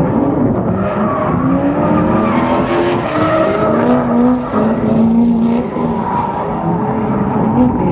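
Drift car engine revving up and down, its pitch rising and falling, with tyres squealing as the car slides.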